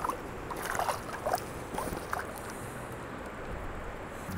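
Creek water sloshing around a wading angler and a landing net at the surface, with several small splashes and drips in the first half, from a small brown trout in the net and the net being handled.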